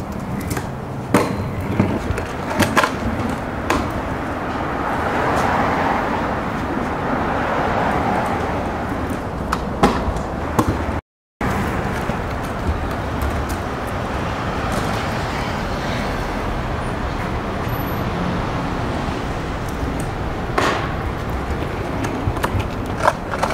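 Kick scooter's small hard wheels rolling on concrete pavement, a steady rumbling rattle with sharp clacks now and then. The sound breaks off for a moment about halfway through.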